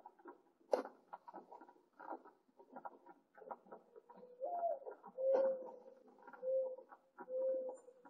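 A dove cooing: from about halfway, one note that rises and falls, then three steady, lower coos about a second apart, over faint, irregular crackling.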